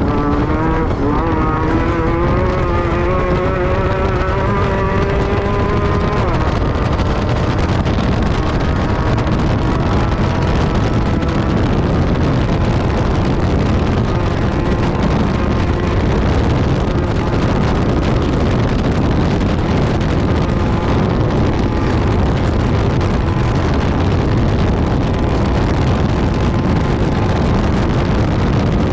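Class 10 desert race buggy's engine accelerating, its pitch rising steadily for about six seconds, then running hard at a steady high level blended with wind noise for the rest.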